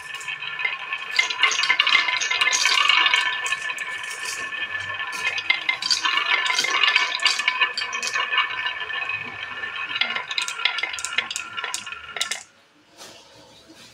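Many marbles rolling down a wooden wave-groove track, clicking and clattering against each other as they pile up at its end; the rattle stops suddenly near the end.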